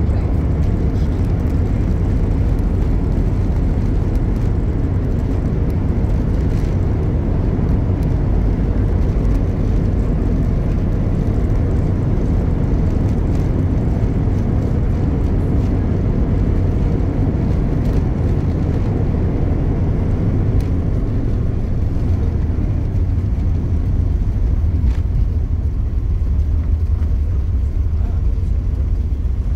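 Steady low rumble inside a jet airliner's cabin as it rolls on the ground after landing, spoilers raised: engine, airflow and tyre noise.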